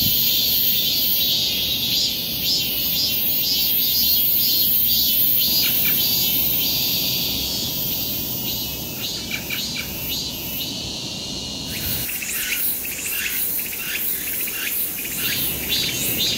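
Insect chorus shrilling steadily at a high pitch, with a run of short repeated chirps joining in about halfway through.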